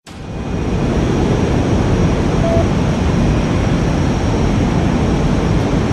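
Jet aircraft engine noise, a deep, steady rush that fades in over about the first second and then holds even.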